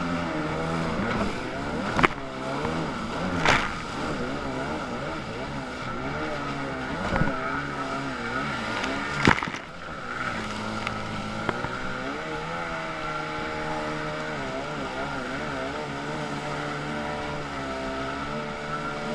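Stand-up jet ski engine running hard, its pitch rising and falling as the throttle is worked, with water rushing under the hull. Three sharp thumps stand out, about two, three and a half and nine seconds in.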